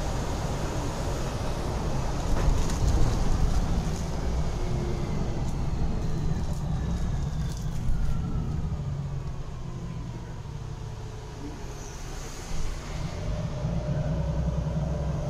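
Inside a moving city bus: steady low engine and road rumble, with a whine that falls in pitch from about four to ten seconds in.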